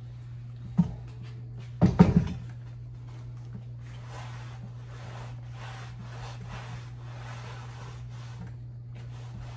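A cast iron skillet knocks against a utility sink, once and then in a brief clatter about two seconds in. It is then scrubbed in even strokes with a sponge, rubbing off the black oxide left on the iron after electrolysis rust removal.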